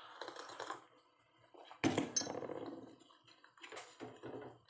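A sip from a cup, then a sudden loud clink about two seconds in as the cup is set down on a glass-topped table, followed by a few softer noises of food being handled on a plastic plate.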